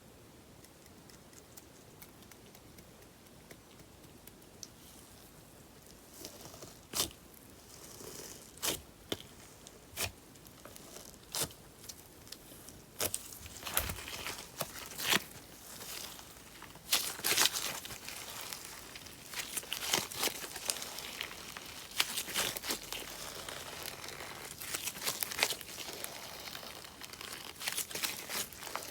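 Paper clay slime being pressed and mixed by hand, giving sharp crackles and pops. Faint at first, the crackles start a few seconds in and come thicker toward the end.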